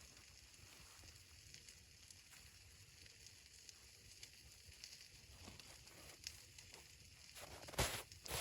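Faint crackling of a wood fire: a soft hiss with scattered small pops, and one sharp, louder snap near the end.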